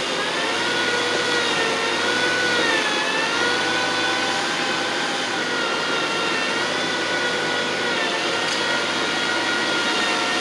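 Landscaping machine engine running steadily, a high whine over a noisy rush, its pitch dipping and rising slightly now and then.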